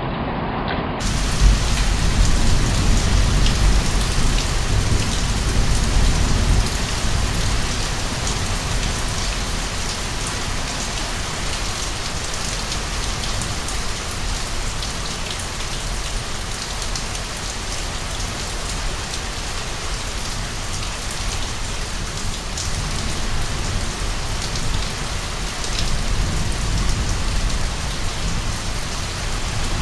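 Heavy rain falling steadily, a dense patter of drops. A deep low rumble runs through the first several seconds and comes back near the end.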